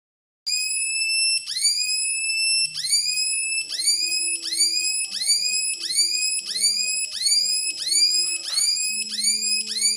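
High-pitched electronic whine from a homemade battery-powered fish shocker's oscillator and step-up transformer, pulsing in repeated chirps. Each chirp sweeps upward in pitch and then cuts off. The chirps start about half a second in at roughly one a second and speed up to about three a second.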